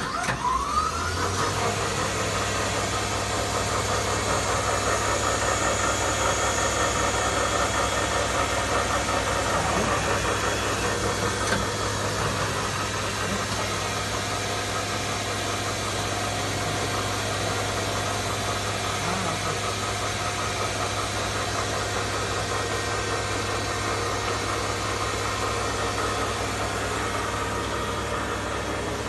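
A 1990 Okuma LB15 CNC lathe running. A whine rises in pitch just after the start, then the machine runs on steadily over a constant low hum.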